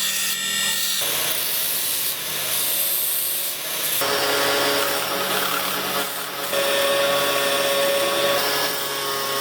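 Steel knife blade being sanded and shaped, a steady abrasive rubbing in several edited shots that change about one and four seconds in. From about four seconds a steady machine hum runs under the rubbing.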